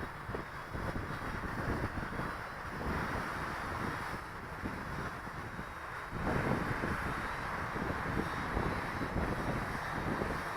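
Gusty wind buffeting the microphone, a rumbling, uneven roar that gets louder about six seconds in, over a steady hiss.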